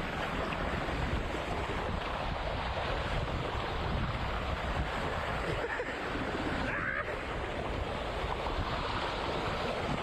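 Fast whitewater rushing and splashing around a raft running down a whitewater river ride, heard from a camera riding low at the water's surface. The sound is a steady, even rush with no pauses.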